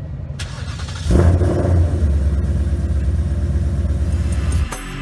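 2018 Mustang GT's 5.0 Coyote V8, with long-tube headers and no catalytic converters, firing up about a second in and settling into a deep, steady idle rumble that cuts off suddenly near the end.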